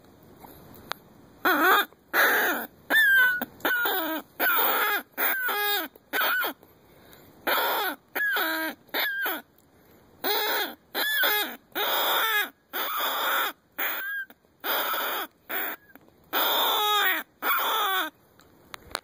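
Knight & Hale Shaft predator call blown in a long series of loud, wavering cries, each lasting about half a second to a second with short gaps, many dropping in pitch at the end.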